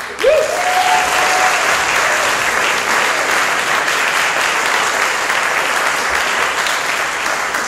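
Audience applauding, starting suddenly and holding steady, easing off near the end. A short rising, then held tone rides over the clapping about half a second in.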